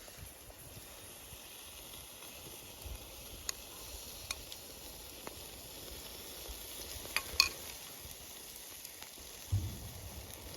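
Skewered vegetables sizzling over a campfire: a steady hiss with a few sharp crackles from the fire, the loudest about seven seconds in.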